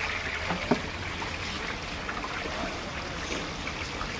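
Raw meat chunks tipped from a steel bowl into a large steel cooking pot, with one sharp knock a little under a second in and a few softer knocks, over a steady hiss.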